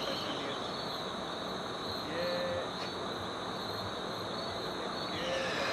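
Crickets trilling steadily in a high night chorus, with a brief faint call about two seconds in and again near the end.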